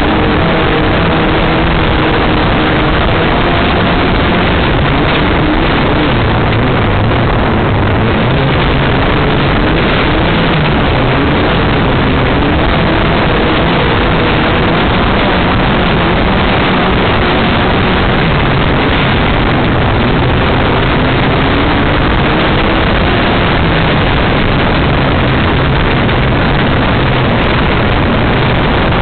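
Class 5 off-road race buggy's engine heard from on board while racing, its revs repeatedly climbing and dropping under a constant loud rush of noise.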